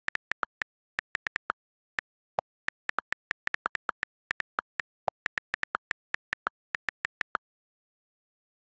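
Rapid typing on an iPad's on-screen keyboard: a quick, uneven run of about thirty sharp key clicks, a couple of them deeper than the rest. The clicks stop about a second before the end.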